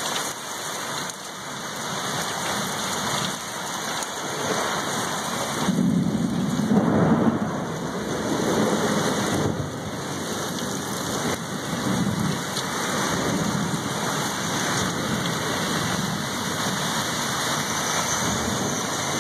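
Heavy rain pouring in a severe thunderstorm, with a roll of thunder rumbling up about six seconds in, loudest around seven seconds, then rolling on more weakly for several seconds.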